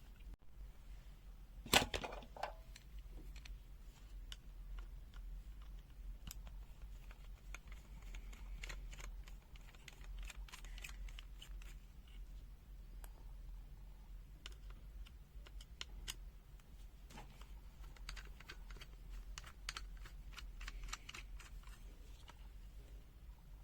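Small clicks and taps of plastic and circuit board being handled and turned over on the opened multimeter, with one louder knock about two seconds in and bursts of quick clicking later.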